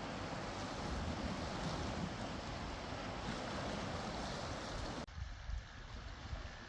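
Steady rush of wind and ocean surf. About five seconds in it cuts off abruptly to a quieter, low rumble of wind and wash.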